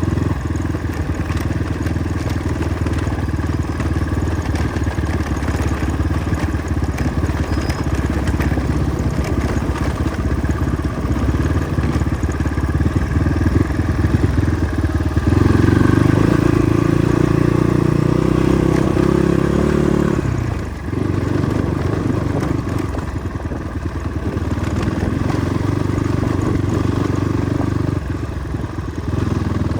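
Motorcycle engine running steadily over a rough off-road track. About halfway through it grows louder and is held at higher revs for several seconds, then eases off briefly before settling back.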